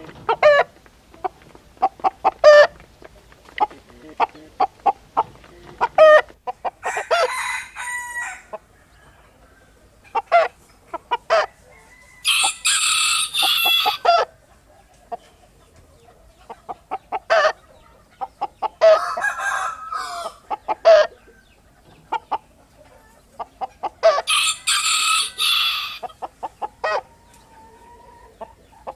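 Hens clucking and cackling in quick runs of short notes, with a rooster crowing several times, each crow lasting one to two seconds.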